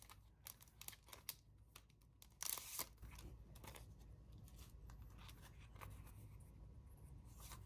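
Faint rustling and light clicks of paper stationery and a sticker sheet being handled, with one brief louder rustle about two and a half seconds in, over a low steady hum.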